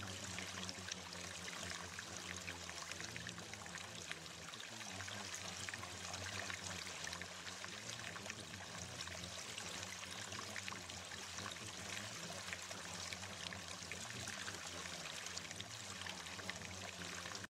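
Steady running-water sound, like a stream or trickle, with a low steady hum beneath it.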